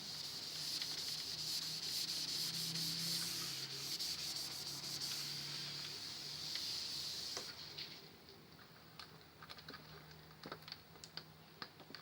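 Steady rubbing hiss that stops about seven and a half seconds in, followed by scattered small clicks.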